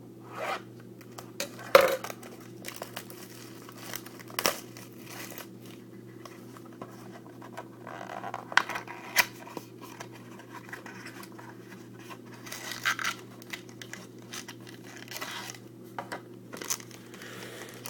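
Packaging of a trading-card mini box being torn open and crinkled by hand: irregular crackling and tearing with scattered sharp snaps, the loudest about two seconds in, over a steady low hum.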